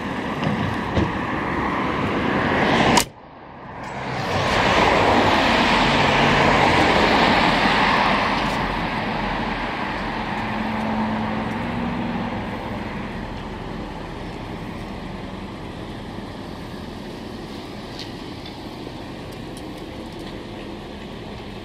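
Road traffic noise, a steady rush of passing vehicles. It cuts out abruptly about three seconds in, then swells loudly and slowly fades away.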